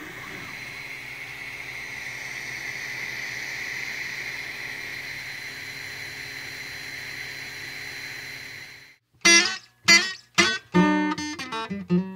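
ANET A8 3D printer running as it prints: a steady mechanical whir with a faint high tone from its stepper motors and fans. About nine seconds in it cuts off and loud strummed acoustic guitar music starts.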